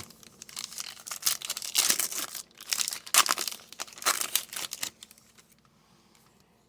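Plastic trading-card pack wrapper crinkling and tearing as it is opened by hand, in irregular bursts that stop about five seconds in.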